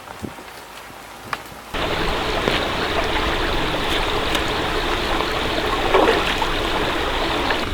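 Flowing stream water, a steady rush that comes in abruptly about two seconds in. Before it there is quieter outdoor ambience with a couple of light clicks.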